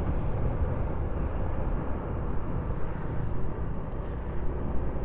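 Honda Supra X125 FI motorcycle being ridden, its single-cylinder engine running steadily under a low, even rumble of road noise.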